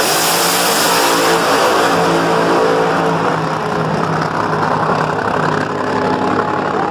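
Drag-racing funny car launching at full throttle and running away down the strip, its engine very loud from the start, with a pitched engine tone through the first few seconds.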